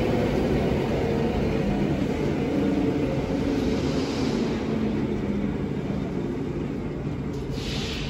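Drum wood chipper running, a steady low machine rumble and hum from its electric motors and drive, easing off slightly in level toward the end.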